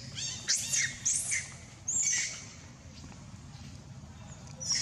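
Baby monkey crying in short, shrill, high-pitched shrieks: four quick calls in the first two seconds or so, then another near the end.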